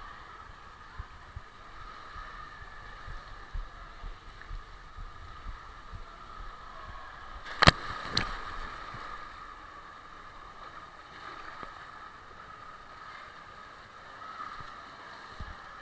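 Water rushing as a rider slides down a tube water slide. Just before halfway there are two sharp splashes about half a second apart as the rider shoots out into the water-filled run-out channel, and then water keeps sloshing and running.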